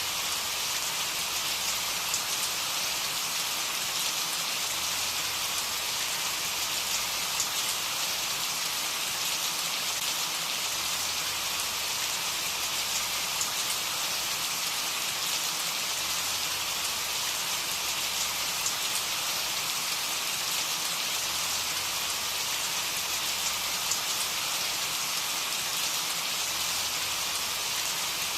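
Steady rain falling, an even hiss with fine scattered drop ticks and no change in strength.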